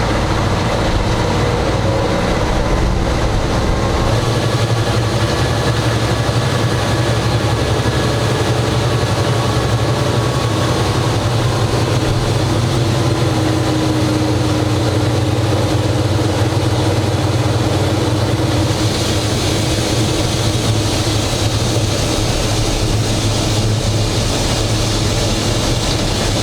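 GE 80-ton switcher locomotive's diesel engines running steadily, heard from inside the cab as it travels along the track: a loud, steady low drone.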